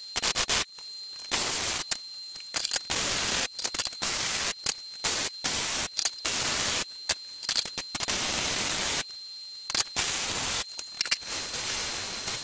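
MIG welder crackling in stop-start runs, short tacks and longer beads of one to two seconds, as a steel engine-mount bracket is welded. A thin steady high whine sounds only while the arc is struck.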